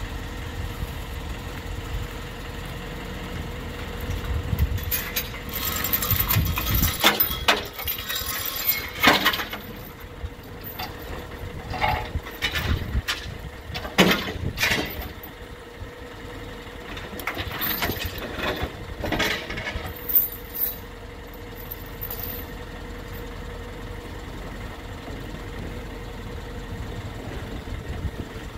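Isuzu FTR hooklift truck's diesel engine idling steadily. Irregular metal clanks and rattles come in a few seconds in and die away near the end.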